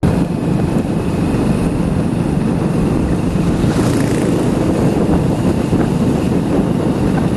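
Steady wind buffeting on the microphone while riding along a road, with vehicle running noise underneath.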